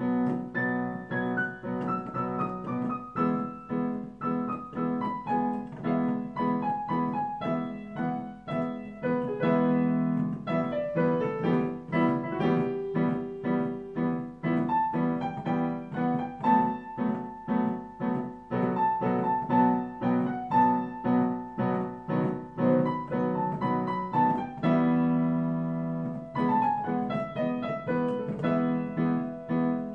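Solo piano improvisation: a melody of running notes stepping up and down in the upper range over held chords in the bass.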